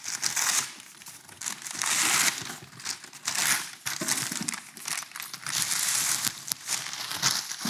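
White packing paper crinkling and rustling in irregular bursts as a leather duty belt is unwrapped and pulled out of it.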